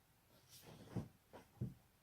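Joint cracking: after a brief soft rustle, three sharp pops in quick succession starting about a second in.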